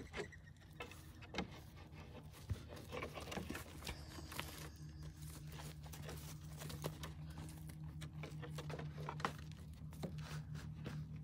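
Goats moving and feeding: scattered clicks, knocks and rustles from hooves on dirt and a wooden stand and muzzles in feed bowls. A steady low hum runs underneath, growing stronger from about four seconds in.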